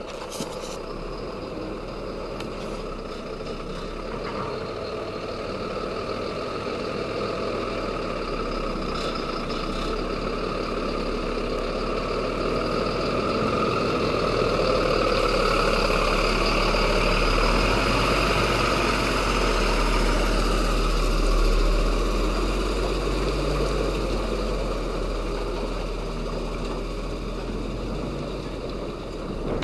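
Mercedes-Benz Zetros 6x6 truck's diesel engine working as the truck wades through a muddy pool. It grows louder as the truck comes close and passes, loudest about two-thirds of the way through, then eases off.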